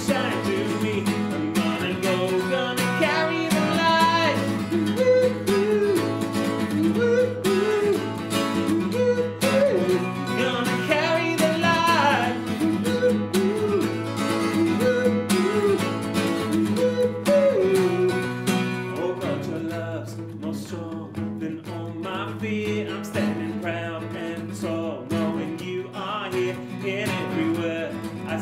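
Acoustic guitar strummed with singing of a worship song, including a wordless "oo woo oo" refrain about halfway through. It gets a little softer in the last third.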